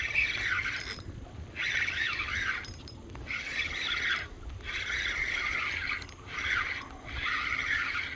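Spinning reel being cranked to retrieve line, a scratchy whirring that comes in about six spurts of roughly a second, with short pauses between turns.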